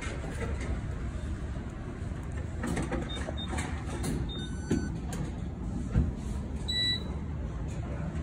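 Steady low vehicle rumble with a few short electronic beeps about three to five seconds in and again near seven seconds.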